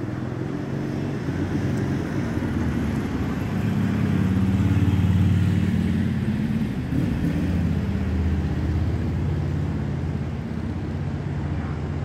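A motor vehicle's engine running close by, a low steady drone that swells to its loudest about halfway through and then eases off.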